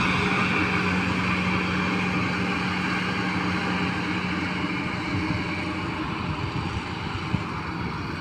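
Yanmar YH850 combine harvester's diesel engine and working machinery running steadily as it cuts rice, growing slowly fainter as the machine moves away.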